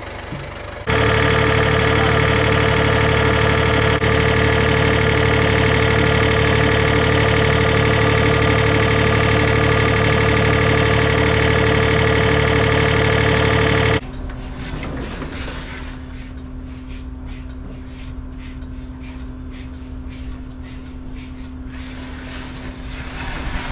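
Steady machinery running: a loud engine or motor sound that starts suddenly about a second in and cuts off about 14 seconds in, followed by a quieter, steady mechanical hum.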